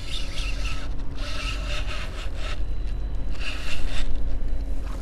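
Spinning reel being cranked in three short spells of rasping whir while reeling in a hooked fish against a bent rod.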